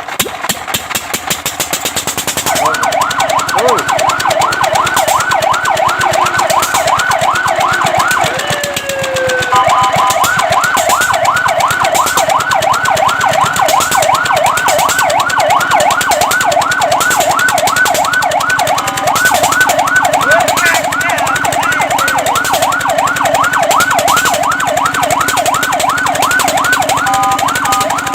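Fire truck siren sounding a fast yelp, its pitch sweeping up and down about three times a second. It starts a couple of seconds in and breaks briefly about nine seconds in before carrying on.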